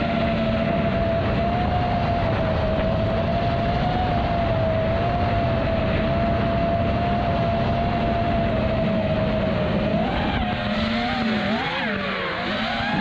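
FPV quadcopter's iFlight Xing-E 2207 brushless motors and propellers whining at a steady pitch in fast low flight, over wind noise on the onboard camera's microphone. From about ten seconds in, the pitch swings up and down as the throttle changes through turns.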